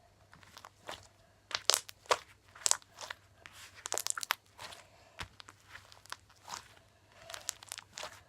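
Sticky slime being squished and stretched by hand, giving an irregular series of sharp crackling pops and clicks, thickest in the middle.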